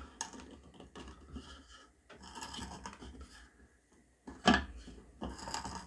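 Screw-tipped spade bit turned by hand with a pocketknife, rasping and scraping as it cuts down into wood, in short uneven strokes with brief pauses. A sharper knock comes about four and a half seconds in.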